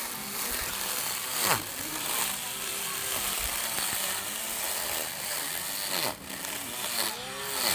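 Small lawn mower's motor running, its pitch wavering and dipping sharply about a second and a half in and again near the end.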